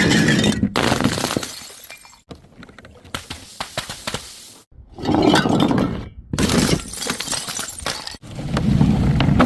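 Glass bottles smashing one after another, each crash followed by the tinkle and clatter of shards scattering. The sound cuts abruptly between smashes, about five times.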